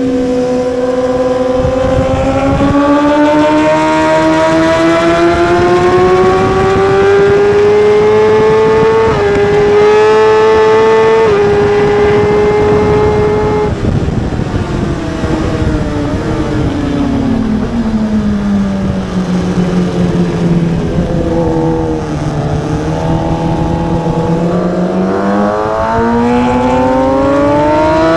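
A 1000 cc superbike engine running hard at race pace. Its pitch climbs steadily for about fourteen seconds with a couple of brief steps, falls away about halfway through and stays low for several seconds, then rises again near the end.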